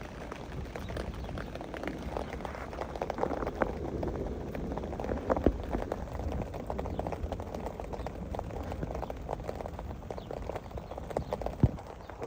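Rain falling, with many heavy drops landing close by as irregular sharp taps over a steady low rumble. Two taps stand out as loudest, about halfway through and near the end.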